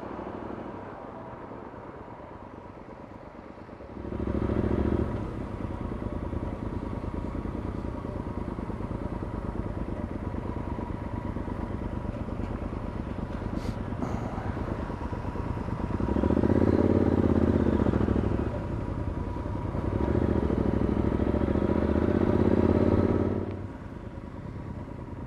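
Motorcycle engine running at low road speed, with three louder stretches of throttle: a short one about four seconds in and two longer ones near the end.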